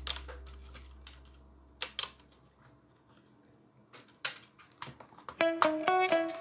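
Scattered sharp clicks and taps of laptop parts and cables being handled inside an opened Dell Inspiron 1525. Plucked guitar music comes in about five seconds in.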